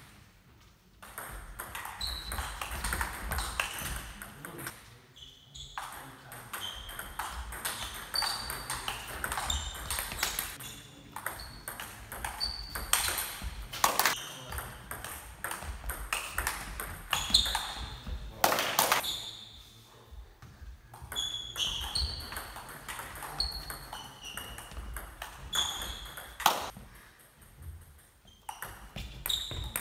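Table tennis ball pinging off the table and bats in quick rallies, with short pauses between points and a few sharper, louder hits.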